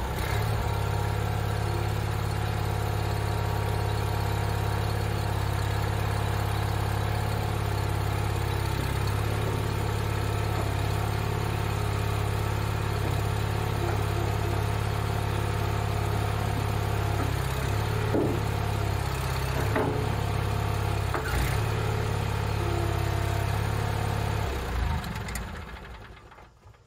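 Ingersoll garden tractor engine running steadily while the front loader hooks and lifts the bucket, with a few short metal clanks about two-thirds of the way through as the bucket catches on the arms. The engine is shut off near the end and dies away over a couple of seconds.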